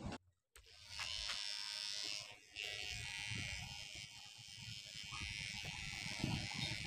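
Electric hair clipper buzzing steadily as it cuts hair over a comb at the nape. It starts after a brief silence and drops out briefly about two and a half seconds in before running on.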